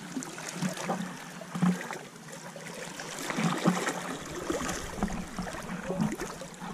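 Shallow seawater sloshing and splashing around a person's legs as he wades, with a few louder splashes. Near the end, water streams out of a mesh fish bag lifted from the sea.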